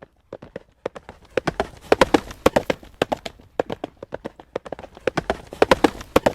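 Horse's hooves trotting on a road surface: a steady clip-clop of sharp strikes, about four to five a second, swelling louder around two seconds in and again near the end.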